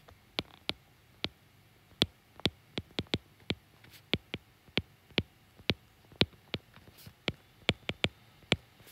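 A stylus tip tapping and clicking on a tablet's glass screen during handwriting: sharp, irregular clicks, about two or three a second.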